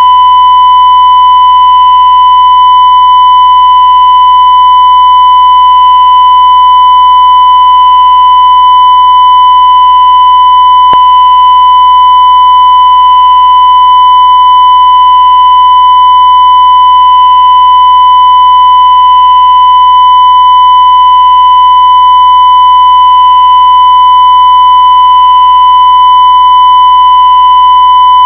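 Steady 1 kHz reference tone, the line-up tone laid with colour bars at the head of a videotape, held as one loud unbroken beep with a low hum under it. A faint click about eleven seconds in.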